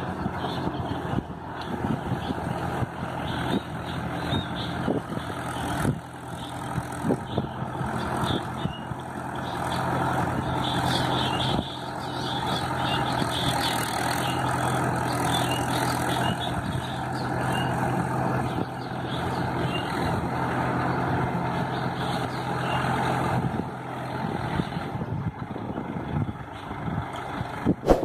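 Mahindra tractor's diesel engine running steadily under load as the tractor works a flooded paddy field with its rear implement.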